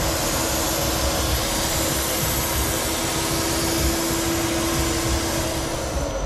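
Crankshaft grinder grinding a big-end journal of a Willys Jeep crankshaft to 40 thou undersize to clean up scored journals: a steady hiss of the grinding wheel over a steady hum. The hum cuts off near the end and the hiss drops away just after.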